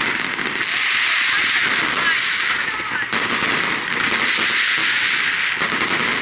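Fireworks display: a dense, continuous crackling of many small pops from bursting shells and crackle stars, with no pause.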